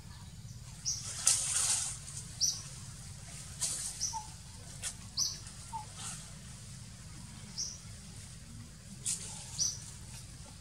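Macaques clambering through a tree, shaking and rustling the leaves and branches in sharp bursts, the biggest about a second in. Short high chirps repeat every second or two over a steady low hum.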